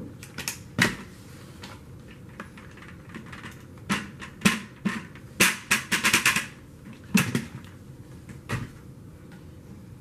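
Scattered sharp plastic clicks and knocks, with a quick cluster of them about six seconds in, from the Dyson Ball Animal 2's dust bin being handled.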